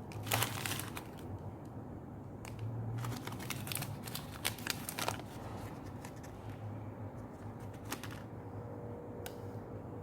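Close-miked eating sounds of fruit and ice cream: short clicks and crackles in clusters, one at the start and a longer one from about two and a half to five seconds in, then single clicks near the end.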